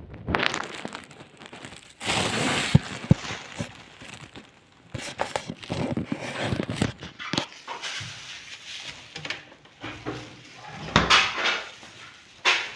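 Irregular handling noises: scattered clicks and knocks with rustling, in uneven bursts.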